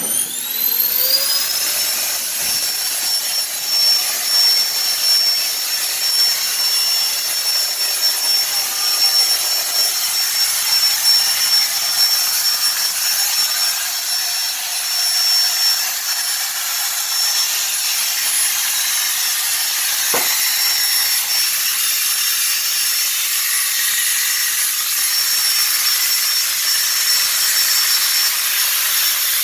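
Air-cushion lift's blower spinning up with a rising whine, then running steadily with a high whine over rushing air as it floats a refrigerator.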